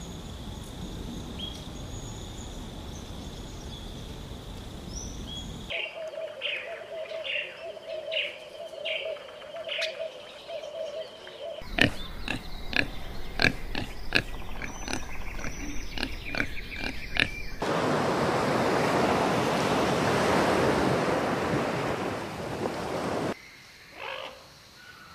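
A succession of outdoor animal sound beds that change abruptly every few seconds. Short high bird chirps over a low rumble give way to repeated chirping over a steady hum, then a quick run of sharp clicks with animal calls, then a loud steady rushing noise, and a few faint chirps near the end.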